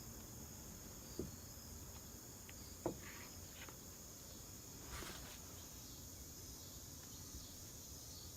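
Crickets chirping in a steady high-pitched chorus, with two faint short knocks about one and three seconds in.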